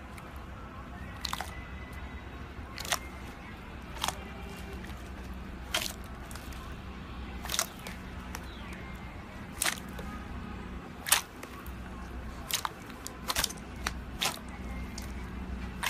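Hands pressing and squeezing slime in a tub: sharp pops and crackles of trapped air bubbles every second or two, over quiet background music.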